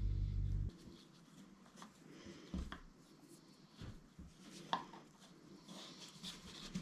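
Yarrow stems and string being handled and tied into a bundle: faint rustling with a few soft clicks and taps on the tabletop. A low steady hum stops abruptly less than a second in.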